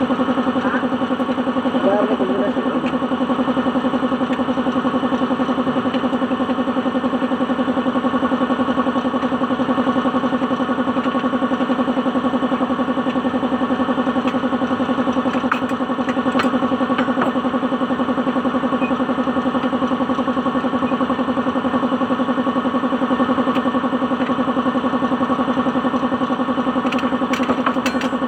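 An engine idling steadily, with an even, unchanging hum and a few faint clicks.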